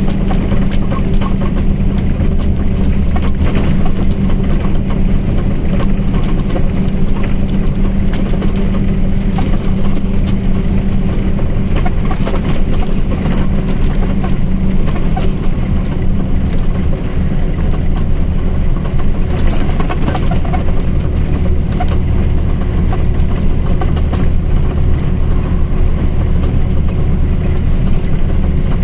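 Mercedes-Benz OF1722M bus's diesel engine and drivetrain running at a steady pitch, with the differential's whine in the mix. It is a continuous drone of steady low tones, and the higher of them fades somewhat about halfway through.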